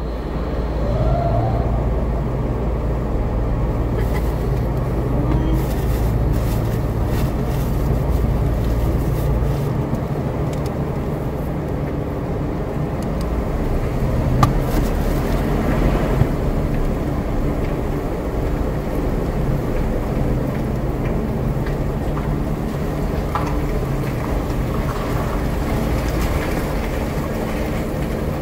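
Jeep Wrangler Unlimited (JK) driving slowly along a dirt track, heard from inside the cabin: a steady low engine and tyre rumble, with occasional clicks and knocks from the rough ground.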